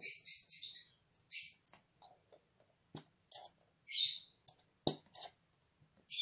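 Plastic bottle of white glue being squeezed upside down: a string of short, high, hissing spurts as air and glue sputter from the nozzle, with a few sharp clicks of the plastic.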